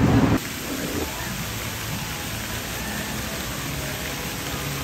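Steady hiss of falling water, even and unbroken. A louder, voice-like sound cuts off abruptly a moment before it begins.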